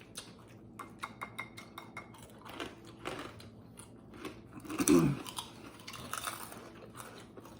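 Cutlery and dishes clicking and clinking at a table during a meal, with quiet eating sounds, and a brief low voice sound, falling in pitch, about five seconds in.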